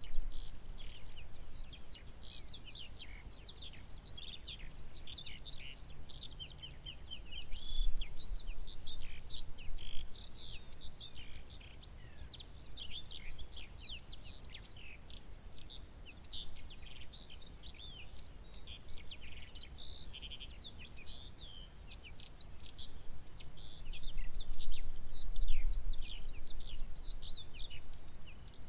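Continuous birdsong: a dense stream of rapid chirps and falling whistled notes, with no pause. A low rumble swells twice, about eight seconds in and again near the end.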